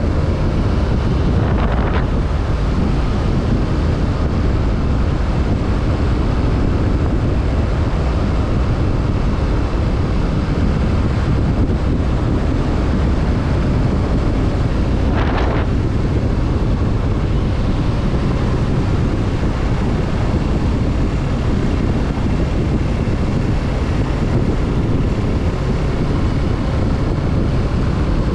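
Heavy wind rush over the microphone on a moving motorcycle, with the Kawasaki Z650's parallel-twin engine running underneath at a steady cruise. A short hiss swells up about two seconds in and again around the middle.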